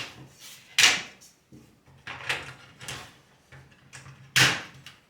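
Clicks and knocks of a PC case's front panel parts being handled and pressed into place, a few sharp ones with quieter handling between, the sharpest at the start, just under a second in and about four seconds in.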